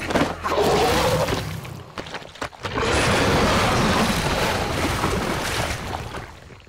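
Animated sound effects of a huge beast plunging into a marsh: a loud rushing crash of splashing mud and water with heavy thuds. It dips briefly about two seconds in, surges again, and fades out near the end.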